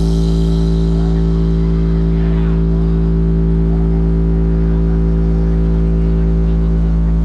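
Sustained deep bass test tone played through a DJ sound system's subwoofers: a steady, unbroken drone with a stack of overtones above it, held at one level throughout.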